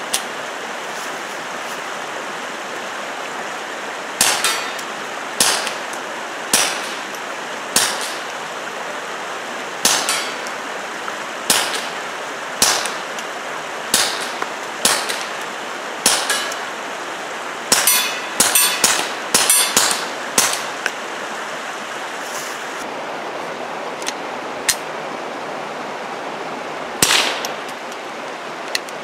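Taurus TX22 .22 LR pistol firing through a fuel-filter-style suppressor, with non-subsonic ammunition. There are about ten single shots a second or so apart, then a quick string of about six, then one more shot after a pause.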